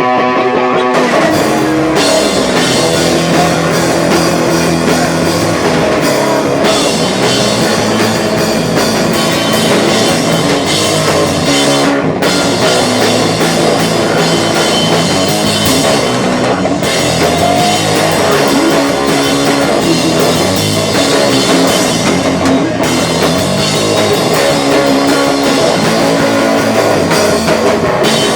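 Live rock band playing loud with electric guitars and a drum kit. A held note rings for about the first second before the drums and the full band come in.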